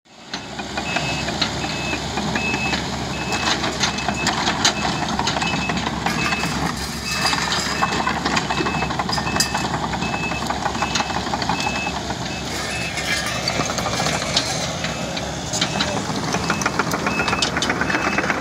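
Diesel engine of a Case CX75C SR compact excavator running under work as it pushes gravel, with a backup alarm beeping in an even series that stops and starts again twice. Scattered clinks and scrapes of gravel and the steel bucket.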